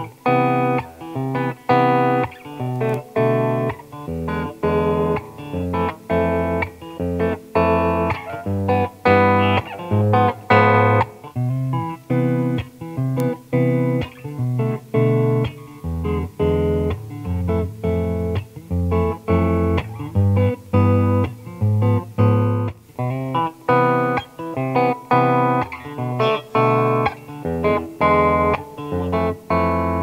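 Squier Telecaster electric guitars played through a Fender amp with a continuous run of picked notes and chords. A Sonic Tele on the neck pickup gives way to an Affinity Tele, which is switched from the neck pickup to the bridge pickup near the end.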